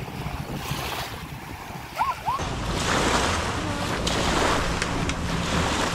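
Motorboat running on the river: wind on the microphone and rushing water over a steady low motor drone, which steps up in level about two and a half seconds in.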